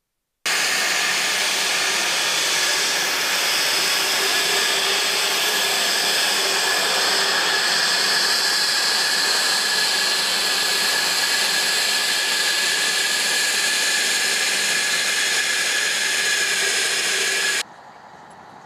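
Jet engine running steadily: a loud, even rush with a steady whine through it. It cuts off abruptly about a second before the end, leaving a much quieter background.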